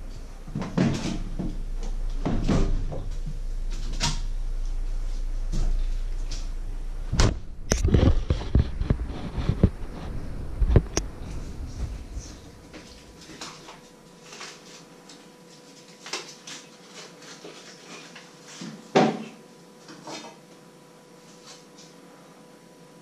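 Kitchen handling sounds: a fridge door and cupboard being opened and closed, and things being knocked, bumped and set down at the counter. The clatter is busiest in the first half, over a low rumble that stops about halfway, and there is one more loud knock near the end.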